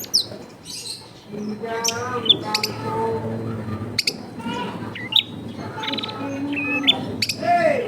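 Long-tailed shrike (cendet) singing a busy, varied run of short chirps and quick up-and-down whistles, broken by sharp clicks.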